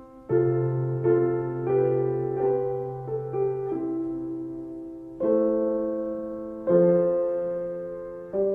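Slow, gentle piano music: melody notes struck every second or so over a low bass note, each note fading away, with new chords about five and a half and seven seconds in.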